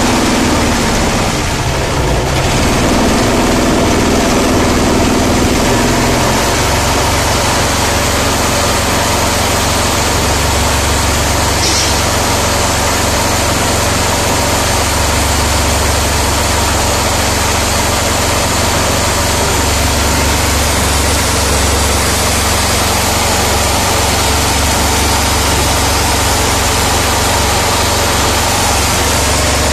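Small stationary petrol/LPG combo engine running steadily at constant speed, driving a mini paddy huller: a continuous dense machine drone.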